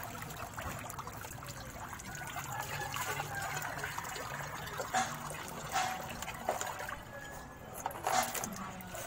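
Water poured from a plastic dipper over a dog standing in a basin of sudsy tick-dip water, trickling and splashing back into the basin, with a few louder splashes about five, six and eight seconds in.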